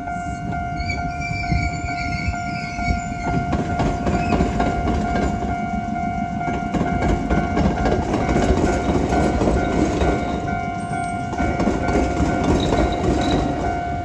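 Iyotetsu electric train rolling over the diamond crossing with the tram line, its wheels clacking over the crossing rails, growing louder from about three seconds in. A level-crossing warning bell rings steadily over it.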